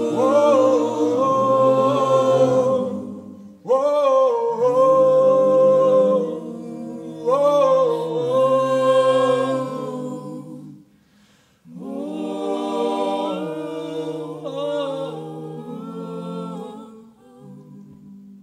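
Mixed a cappella choir of men and women singing held, wordless chords in long phrases. Several phrases open with an upward scoop in pitch. After a short break near the middle, the final phrase thins out and fades away as the piece closes.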